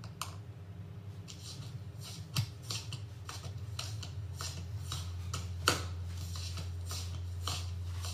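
Quiet pause with scattered small clicks and rustles, a sharper click about two and a half seconds in and another near six seconds, over a steady low hum that grows stronger partway through.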